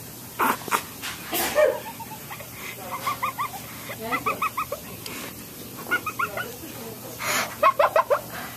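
Short runs of quick, high-pitched vocal notes, four times, several notes in each run, with a few short breathy noises between them.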